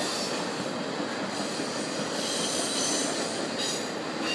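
Norfolk Southern intermodal freight train rolling past, its cars of truck trailers making a steady noise of wheels on rail, with a high-pitched squeal that comes and goes.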